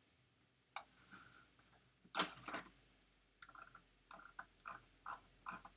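Faint computer mouse clicks, two sharp ones, then from just past halfway a run of short soft ticks about three a second as the mouse scroll wheel is turned.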